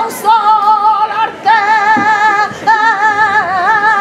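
A woman singing a saeta solo and unaccompanied, holding long, wavering notes with ornamental turns, broken by short breaths.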